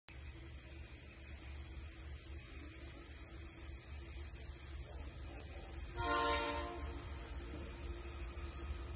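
Horn of the lead GE Dash-9 diesel locomotive on an approaching loaded iron-ore train: one short blast about six seconds in, over a steady low rumble.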